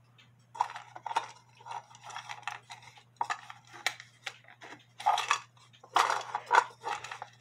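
Small brass cuckoo clock movement and loose metal parts clicking, rattling and scraping irregularly against a clear plastic container as they are handled, with a low steady hum underneath.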